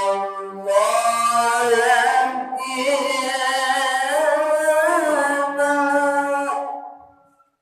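A single voice chanting a long, ornamented melodic line in a few held breaths, with wavering turns in pitch. It fades out about seven seconds in.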